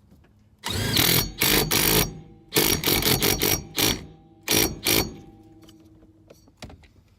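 Impact wrench tightening the steering-column nut in three rattling bursts, the last one short, with a faint whine as it winds down.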